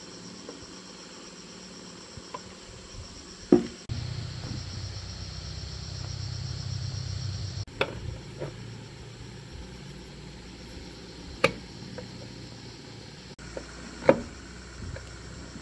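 A handful of sharp knocks, a few seconds apart, from tools striking metal parts, over a steady background of insects chirring.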